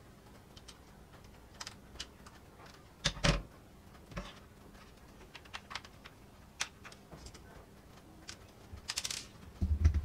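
Small clicks and taps of a Daikin air-conditioner remote's plastic casing and a small screwdriver as the remote is screwed back together, with a louder knock about three seconds in and another near the end.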